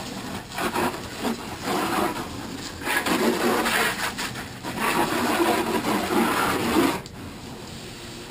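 Water from a garden hose spray nozzle hitting the cut-down plastic IBC tote halves as they are rinsed out, a loud splashing hiss that swells and fades as the spray is moved around. It drops to a much lower level about seven seconds in.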